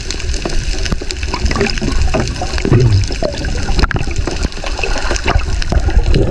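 Water gurgling and crackling around a submerged camera, a steady muffled rumble crossed by many small clicks.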